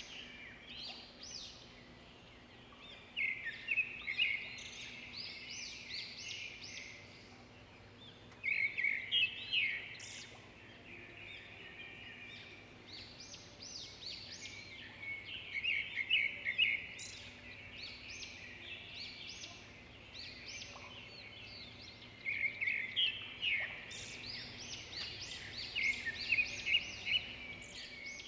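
Small birds chirping and twittering in quick trills, in several louder bouts, over a faint steady hum.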